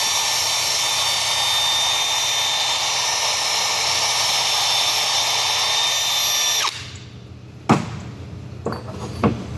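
Small high-speed power tool running steadily with a high-pitched whine, cutting off suddenly about two-thirds of the way through, followed by two sharp knocks of metal parts.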